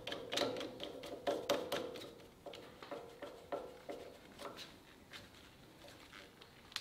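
Screwdriver working the small screws of the carbide inserts on a Jet combo machine's helical thicknesser cutterhead: irregular metal clicks and taps, several a second, thinning out after about four seconds.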